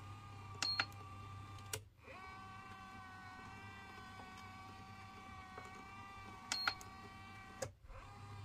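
Terelax shiatsu foot and calf massager running empty in Auto mode, a steady electric motor whine. Twice a short beep with a click comes as a panel button is pressed, and about a second after each the motor stops briefly and starts again at a slightly different pitch as the program changes.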